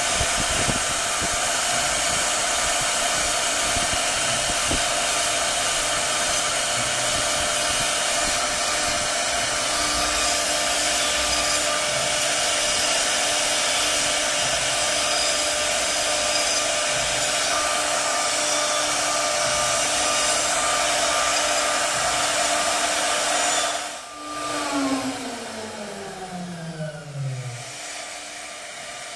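Handheld electric power tool running steadily as it cuts along a wooden beam, a loud whine with a rushing noise. About 24 seconds in it is switched off, and its whine falls in pitch as the motor spins down.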